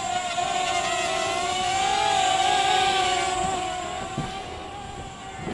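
Hubsan X4 H107D mini quadcopter's small brushed motors and propellers whining in flight, the pitch wavering up and down with throttle. The whine is loudest two to three seconds in and fades near the end as the quad flies off.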